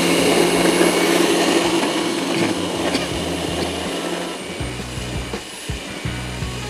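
Countertop blender motor running at full speed, churning a thick banana, yogurt and milk drink, with a steady hum. It grows gradually quieter in the second half as music comes in.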